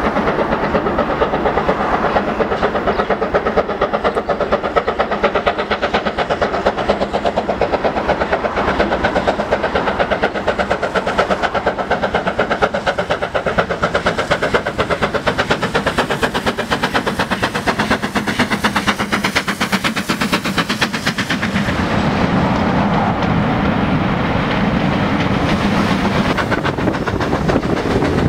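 Steam locomotive working hard with a passenger train, its exhaust beating in a rapid, even rhythm. About three quarters of the way through the sound changes to a steadier rumble of the train heard from inside a carriage.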